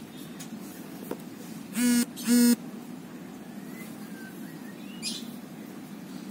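Two short beeps of a vehicle horn, the second slightly longer, about two seconds in, with faint bird chirps in the background.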